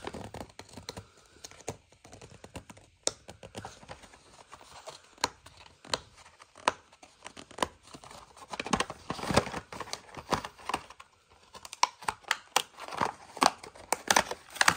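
Cardboard-and-plastic blister pack of a Matchbox die-cast toy car being torn open by hand: irregular crackling, tearing and crinkling, sparse at first and busier in the second half.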